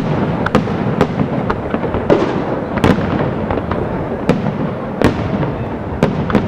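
Professional aerial fireworks display: shells bursting in quick succession, a sharp bang about every half second to second, over a continuous rumble.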